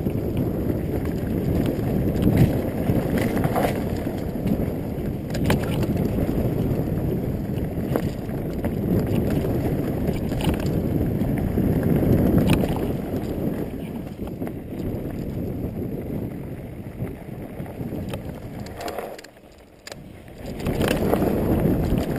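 Wind rushing over the camera microphone and knobby tyres on a dirt singletrack as a Specialized Stumpjumper mountain bike is ridden downhill, with the bike rattling and knocking sharply over bumps at irregular moments. The noise dips briefly about twenty seconds in, then picks up again.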